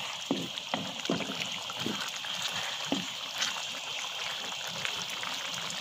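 Thick fish-acar sauce simmering and sizzling in a wok with a steady hiss, while a wooden spatula stirs it, making a few soft wet strokes in the first three seconds.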